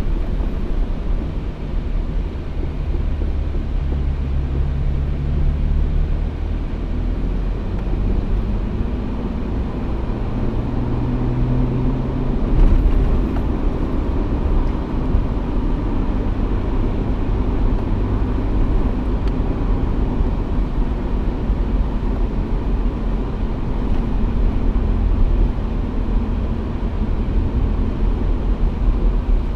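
Off-road vehicle engine running as it drives a trail, a steady low rumble whose pitch rises and falls with the throttle, briefly louder about twelve seconds in.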